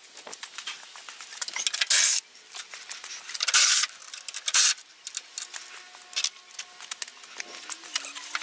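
Fast-forwarded sound of hand tools at a truck's headlight mount: rapid metallic clicks and rattles of a socket wrench on the bolts, with a few short hissy bursts.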